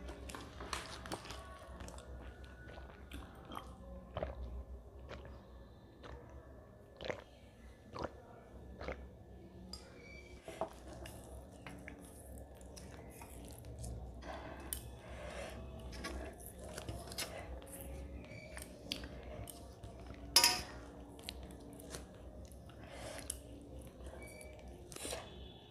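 Close-miked eating sounds from a person eating rice and curry by hand: faint chewing and wet mouth smacks as fingers go into the mouth, with fingers scraping a steel plate. Scattered small clicks throughout, and one louder noise about twenty seconds in.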